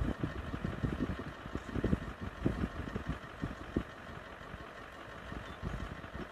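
Vehicle engine idling steadily, with irregular low rumbles over it that ease off somewhat in the second half.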